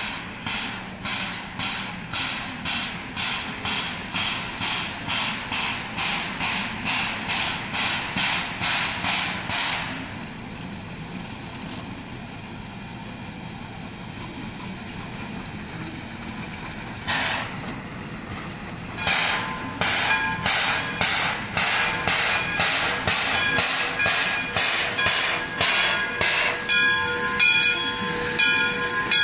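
Steam locomotive working, its exhaust chuffing about twice a second and growing louder as it approaches. The chuffs stop for several seconds about ten seconds in, then resume. Near the end, steady high-pitched tones sound over the chuffing.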